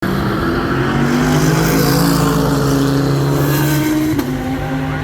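GT3 race car engine at full throttle, its pitch climbing steadily as it accelerates, then dropping sharply with a gear change about four seconds in.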